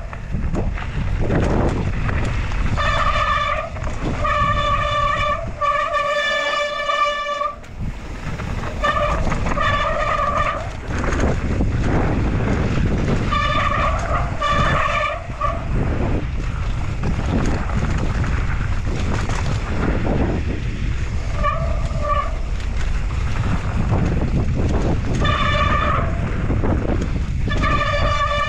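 Mountain-bike disc brakes howling in short, horn-like honks at one steady pitch, a dozen or so times as the rider brakes down the trail, over the constant rumble and rattle of tyres on rough dirt and wind.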